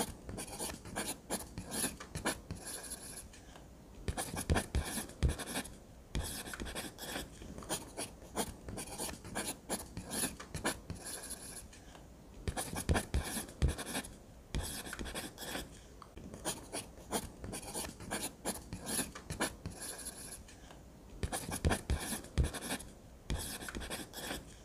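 Graphite pencil scratching across paper in bursts of short strokes with brief pauses, first drawing outlines and later shading in rapid back-and-forth strokes.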